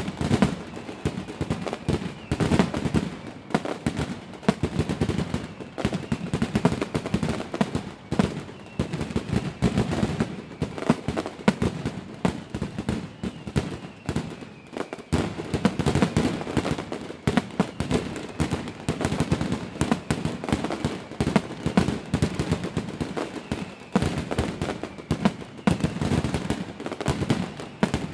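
Fireworks going off in quick succession, with many sharp bangs and crackles a second in an unbroken barrage.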